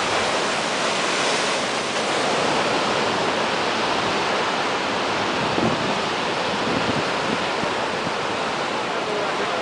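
Heavy storm surf breaking and churning in foam against a seawall and steps: a steady, dense rush of wave noise.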